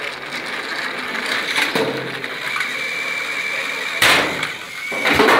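Battery-powered toy train motor whirring with a thin steady whine, and a sharp plastic clatter about four seconds in as the engines pile into each other, with another loud clatter near the end.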